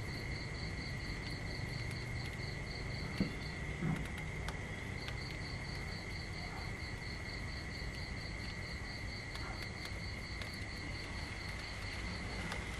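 Insects calling in grass: one steady, unbroken high trill, and above it a second call pulsing about four times a second that stops for about a second and a half a little under four seconds in. Two faint knocks come around three to four seconds in.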